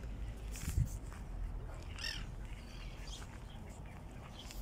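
A bird gives a single short call about two seconds in, over a steady low wind rumble on the microphone, with a brief low bump just under a second in.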